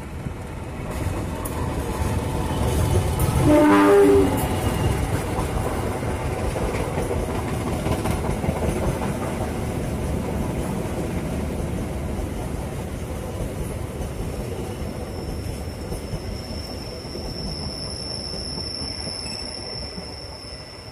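Diesel-hauled passenger train passing close by, with one short horn blast about four seconds in as the locomotive goes past. The rumble and clatter of the carriages follow and slowly fade, and a steady high-pitched wheel squeal sets in on the curve about two-thirds of the way through.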